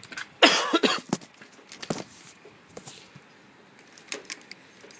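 Light knocks and clicks as a small welder and its cords are handled on a metal welding cart. There is a short, loud rasping noise about half a second in, the loudest thing heard.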